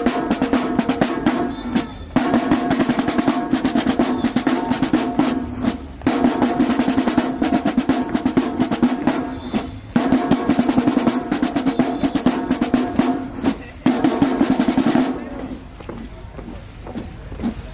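Marching band drumline playing a cadence: rapid snare rolls and bass drum strokes in repeated phrases of about four seconds with a brief break between each, dropping off for the last couple of seconds before picking up again.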